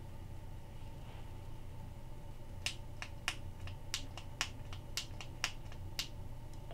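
Maglite flashlight push-button switches clicked over and over, about a dozen sharp clicks across three seconds, starting about two and a half seconds in. A faint steady hum runs underneath.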